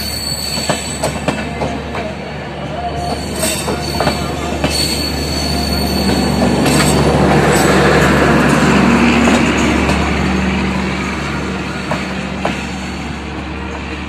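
LHB passenger coaches rolling past with wheels clicking over rail joints. About halfway through, the rear luggage-and-generator power car passes and its diesel generator adds a loud, steady hum, which then fades as the train moves away.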